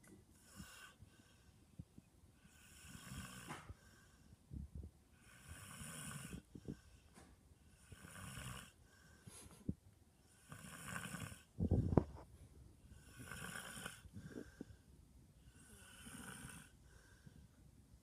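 Sleeping pit-bull-type dog snoring, about seven snores evenly spaced roughly two and a half seconds apart, the loudest and deepest near twelve seconds in.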